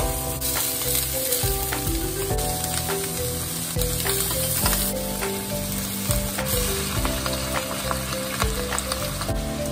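Vegetables sizzling in a hot frying pan as they are stir-fried, with the spatula clicking and scraping against the pan, over light background music with a simple melody.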